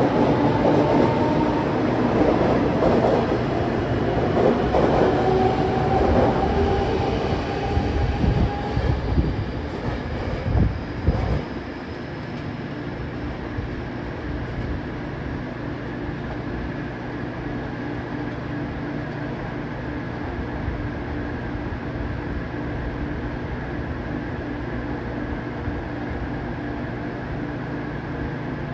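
Six-car 813 series electric train accelerating away from a station platform. Its inverter-driven traction motors give a whine that rises slowly in pitch, over the rumble and clatter of the wheels, with a few knocks over rail joints about ten seconds in. Once the last car is past, about twelve seconds in, the sound drops to a steady low hum.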